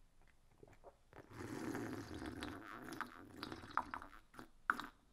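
A person gulping and swallowing a green blended vegetable smoothie from a glass: soft, wet drinking sounds with small clicks of lips and throat, starting about a second in.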